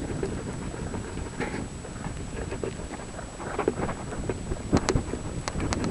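Blizzard wind rumbling on the camera microphone, with a few sharp clicks near the end.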